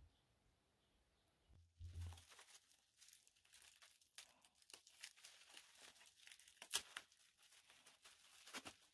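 Thin plastic wrapping crinkling and tearing faintly as it is handled, in scattered small crackles, with a dull thump about two seconds in.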